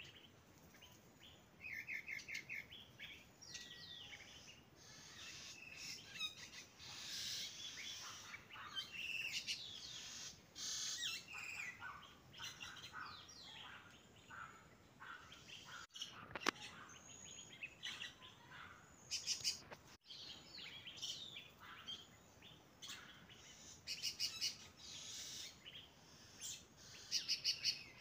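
Wild birds chirping and singing: many short chirps, trills and whistles overlapping, with the sound cutting out abruptly twice around the middle.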